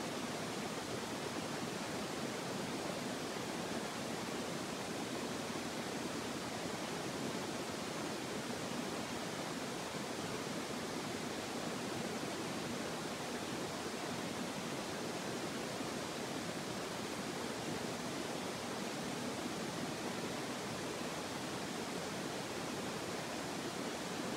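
A steady, even hiss with no changes or separate events.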